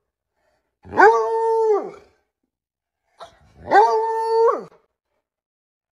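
A black-and-tan hound howling twice. Each howl is about a second long: a quick rise, a held steady note, then a falling tail.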